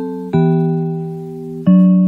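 Recreated chime melody of a Japanese municipal disaster-prevention radio (bōsai musen): slow electronic notes over a held low note, each struck and then slowly fading. A new note comes in about a third of a second in and another near the end.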